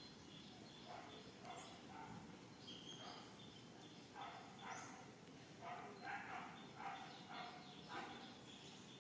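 Faint animal calls: a run of short calls, about two a second, growing louder about halfway through, over quiet outdoor background with a few thin high chirps.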